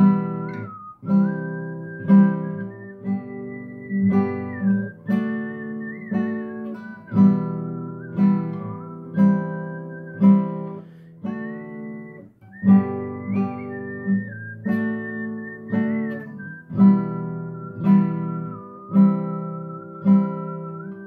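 Nylon-string classical guitar strummed, roughly one strum a second, with a whistled melody gliding over the chords.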